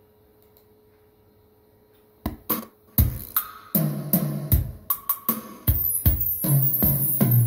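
Music playing through a pair of Sony MD333 bookshelf speakers. A faint steady hum gives way about two seconds in to a song's opening drum beat, with kick and snare hits over deep bass.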